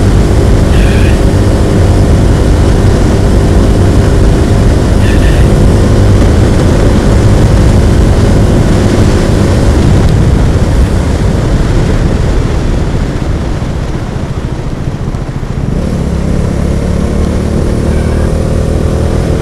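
Bajaj Dominar's single-cylinder motorcycle engine running at speed under the rider, with steady wind noise over it. The engine eases off about fourteen seconds in and pulls up again a couple of seconds later.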